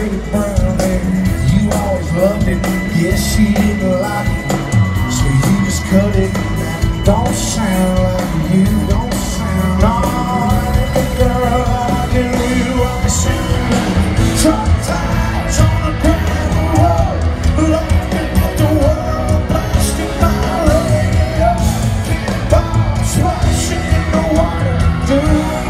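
Live country band and lead singer performing a song, heard from within the crowd: steady drums and bass under guitars, with a sung melody line throughout.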